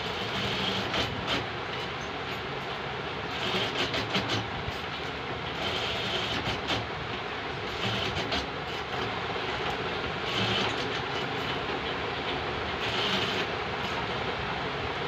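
Steady mechanical running and clattering with a brighter hissing surge every two to three seconds, and scattered light clicks.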